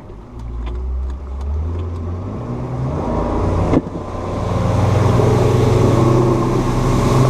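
Boat's outboard motor throttled up hard from idle, its engine note rising and growing louder as the hull climbs onto plane, then running loud and steady at speed. A single sharp knock comes a little past halfway through.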